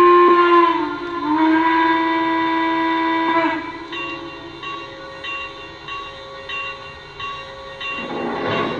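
Lionel Legacy RailSounds of a C&O 2-6-6-2 Mallet steam locomotive: a chime steam whistle blast ends just under a second in and a second long blast follows, ending about three and a half seconds in. The locomotive bell then rings about twice a second as the engine starts to move, with a louder rush of steam sound near the end.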